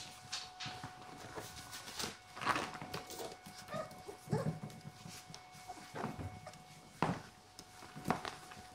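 Five-week-old puppies playing and wrestling: small yips and whimpers among irregular scuffles and knocks of paws and bodies against the beds and tiled floor.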